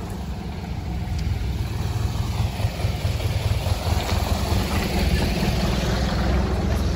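Tractor engine idling, a steady low drone that gets louder about a second and a half in.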